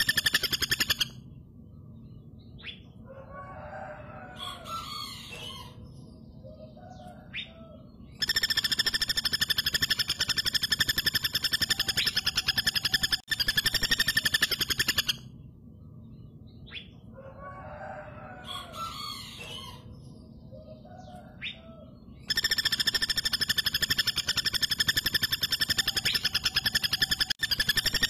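Female common flameback woodpecker giving long, rapid rattling trills, each lasting about seven seconds: one ends about a second in, a full one runs through the middle, and another starts near the end. Softer, scattered calls come between the trills.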